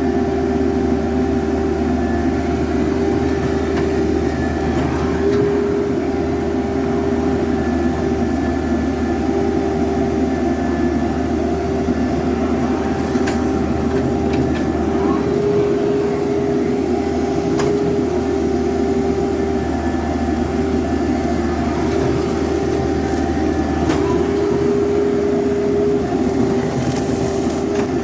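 Excavator's diesel engine running steadily under load, a constant low hum with a steady whine held over it.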